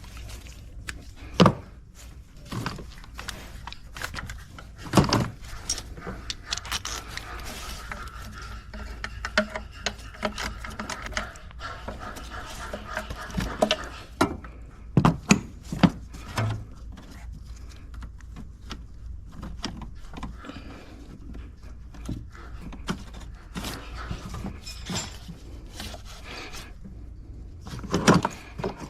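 Scattered metallic clinks, clicks and knocks of hand tools and bolts being handled while an intake manifold is set in place and its bolts are started, with a few louder knocks among them.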